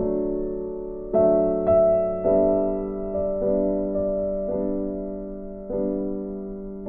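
Background music: soft piano or electric-piano chords, a new chord struck about once a second and left to ring and fade.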